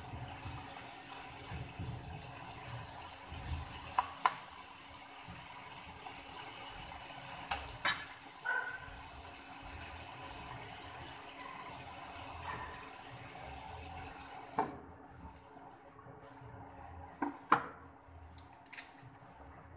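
Cauliflower and onion sizzling steadily in a non-stick wok, with a few sharp clinks and knocks of utensils, the loudest about eight seconds in. The sizzle stops abruptly at a knock about three quarters of the way through, leaving a few scattered clicks.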